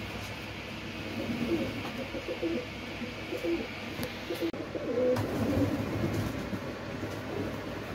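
Domestic teddy pigeons cooing, with repeated low coos overlapping one another and a brief break about halfway through.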